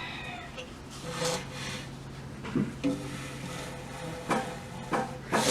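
Handling noises as a bent bicycle frame is worked on and checked: a few short knocks and rubbing sounds over a steady low hum.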